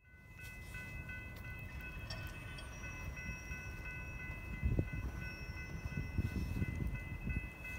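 Approaching Amtrak passenger train heard before it comes into view: a low rumble that builds slightly, with a thump about halfway through, under a steady set of high tones.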